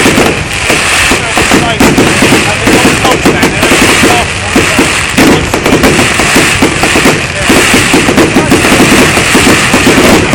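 Fireworks display in a dense, continuous barrage of rapid bangs and crackles, loud and without pause.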